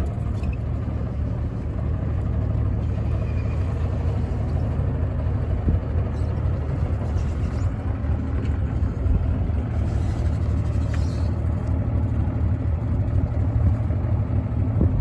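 The Yamaha engine of a small fishing boat running steadily at low speed while the boat manoeuvres, a low, even drone.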